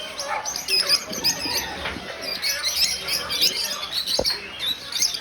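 Many small caged birds chirping and twittering at once in a dense, continuous chorus, with one short knock about four seconds in.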